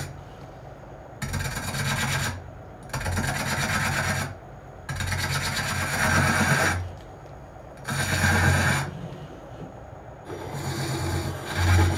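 Hook tool cutting the outside of a spinning wooden cup blank on a Japanese-style lathe: five cuts of one to two seconds each, with the lathe running more quietly in the gaps between them.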